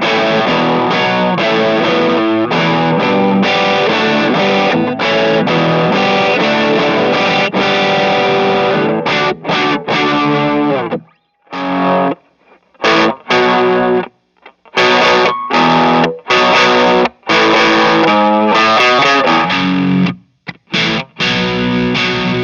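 Distorted electric guitar, a 1979 Gibson Les Paul Deluxe played through a Stone Deaf Trashy Blonde distortion pedal, playing a rock riff. It runs without a break for about the first half, then switches to phrases that cut off suddenly, with short silences between them.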